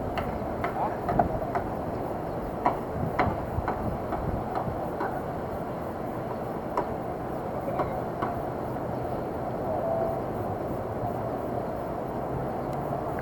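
Spinning reel being cranked to retrieve a lure: a steady whirring with scattered light clicks.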